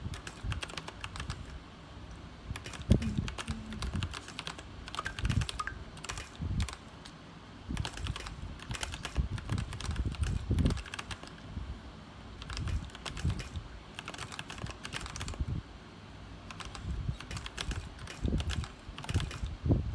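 Typing on a Royal Kludge RK61 mechanical keyboard with brown tactile switches: quick key clacks in runs, broken by brief pauses.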